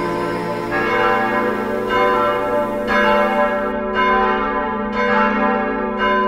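Church bells ringing, a new stroke about once a second, each ringing on under the next.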